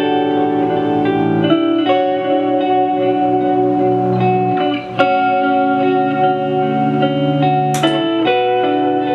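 Layered ambient electric guitar loops from a Gibson LPJ through a Line 6 DL4 looper and a Marshall MG15 amp with its spring reverb turned all the way up, sustained chords changing about every three seconds over low bass notes. A sharp click comes about five seconds in and a short bright noise near the end.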